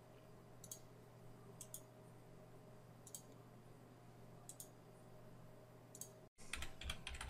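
Computer mouse-button clicks, about four faint ones spaced a second or so apart, each a quick double tick, over a low steady hum. Near the end comes a run of quicker, louder taps of keyboard keys.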